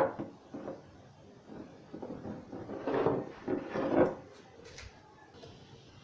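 Handling noise on a wooden tabletop: metal microwave high-voltage capacitor cans set down and moved, and multimeter test leads picked up. There is a sharp knock at the start and the loudest clattering comes about three and four seconds in.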